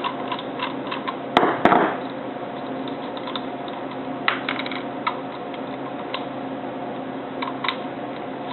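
Light metallic clicks and clinks of a 9/16 wrench working the nut off a toggle switch on a shampoo-vac brush handle, with a louder double clatter about one and a half seconds in, over a steady background hum.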